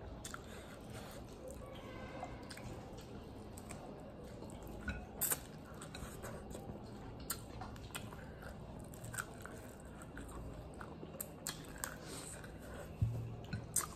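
Close-up eating sounds: a person chewing and biting mouthfuls of rice and dal mixed by hand, with many short wet clicks from the mouth. A single low thump comes near the end.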